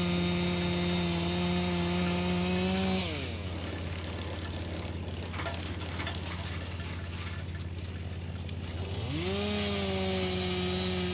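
Wood chipper running with a steady whine. About three seconds in, the pitch drops sharply as it bogs down under load, with crackling and snapping of wood being chipped for several seconds. Near the end the whine climbs back up to its steady pitch.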